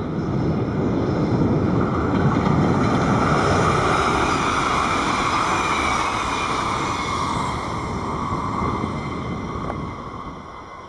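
Train passing by, its rolling noise swelling over the first couple of seconds, then fading away and dropping off near the end.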